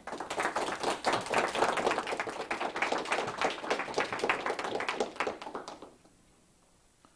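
Audience applauding, with many separate claps standing out, dying away about six seconds in.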